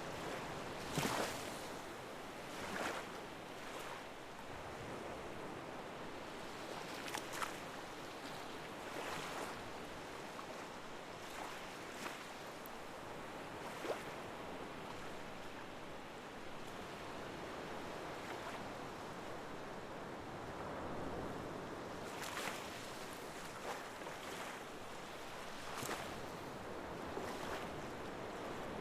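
Water washing steadily, like small waves on a shore, with occasional short sharp splashes every few seconds.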